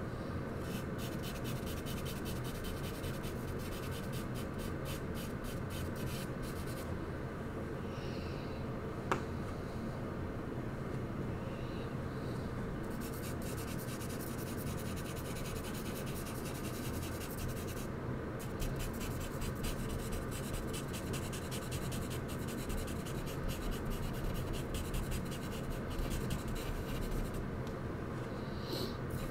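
Charcoal scratching and rubbing on paper in runs of quick, short strokes with pauses between them, over a steady low hum. A single sharp click about nine seconds in.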